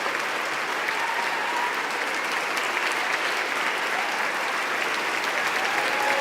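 Steady applause from a large audience: many people clapping at once in a dense, even patter.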